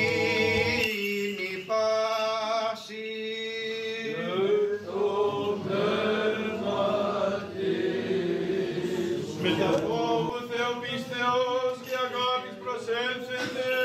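Byzantine chant sung by a choir of boys and young men, with a steady low drone note held under the moving melody.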